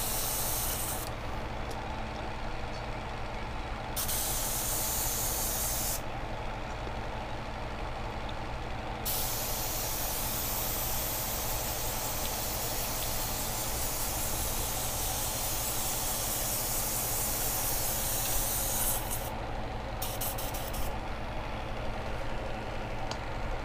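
Paasche airbrush spraying in spells of steady hissing, cut off and restarted several times, with one long run of about ten seconds in the middle and a few short bursts near the end, over a steady low hum.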